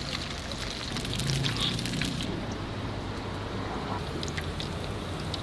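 Hot oil frying in a wok, sizzling, with sharp crackles through the first two seconds and softer frying after that, over a steady low background hum.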